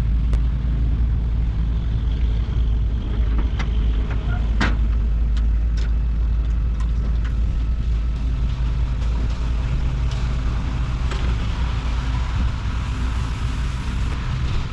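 Concrete mixer truck's diesel engine running steadily with a deep rumble, with a scattering of sharp clicks and knocks, most of them in the first half.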